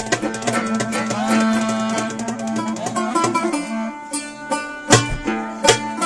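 Banjo played in a lively folk tune, a quick run of plucked notes with a few sliding notes about a second in and louder, sharper strokes in the second half.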